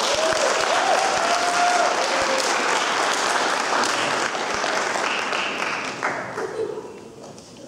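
Audience applauding, dying down about six seconds in.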